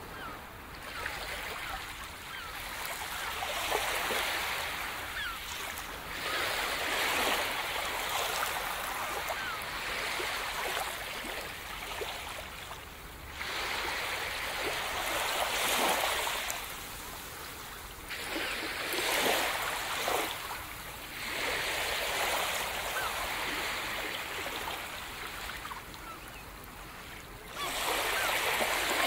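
Gentle surf: small waves breaking and washing up a sandy beach, swelling and fading every few seconds.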